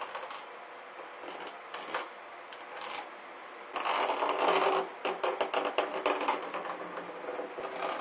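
Hands handling plastic parts on a plastic cooler lid: a PVC elbow and a small fan are rubbed and scraped across the lid and lifted off it. About four seconds in there is a loud scrape, then a rapid run of clicks and rattles.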